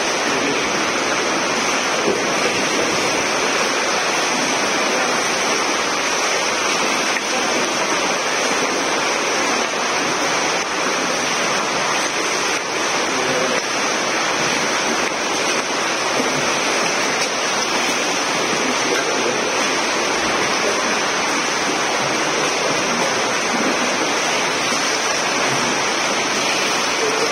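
Steady wash of water splashing from several swimmers doing front crawl in an indoor pool, an even rushing noise with no let-up.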